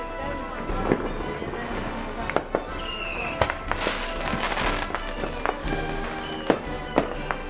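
A ground firework fountain spraying sparks, with sharp pops scattered throughout and a dense hiss of sparks for about a second midway. Background music plays along with it.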